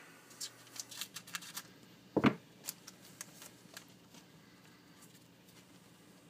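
Trading cards being handled and slid through the hands, with quick paper-like rustles and flicks, and a single louder dull knock about two seconds in. The card sounds die down after about four seconds.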